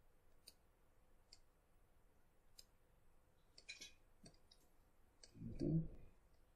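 Faint, sharp computer mouse clicks now and then while a 3D model is rotated on screen. About five seconds in comes a brief low vocal murmur, the loudest sound here.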